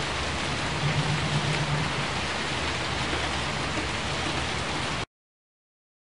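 Steady hiss of rain, a nature-sound backing track, with a low rumble underneath; it cuts off suddenly about five seconds in.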